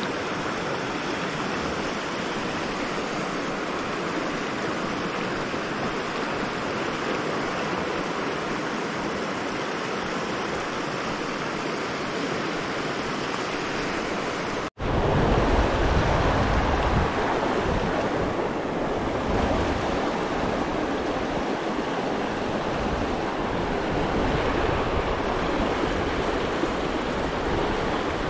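Shallow rocky river running over rapids: a steady rush of water. About halfway through it drops out for an instant and comes back louder and deeper.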